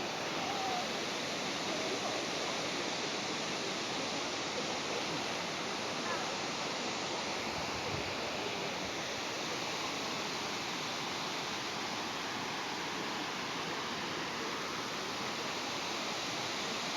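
Steady rushing of a waterfall: an even wash of falling water that holds at one level throughout.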